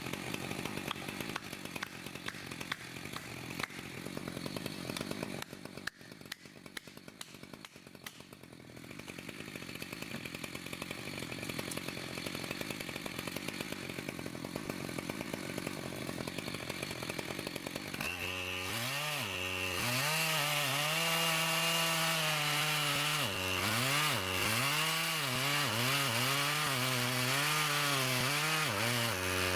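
Chainsaw cutting through a large log. It runs roughly at first, then about two-thirds of the way in grows louder, its engine note rising and falling as the throttle is worked and the chain bites into the wood.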